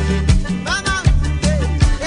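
Instrumental break of a Malay world-pop song: a steady drum beat over a bass line, with a lead melody that bends between notes.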